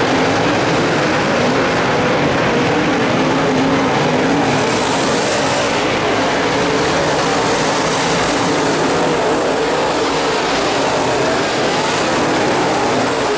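Dirt-track modified race cars' V8 engines running hard at racing speed as the pack goes round the oval, a steady loud drone with engine notes that waver in pitch as the cars pass.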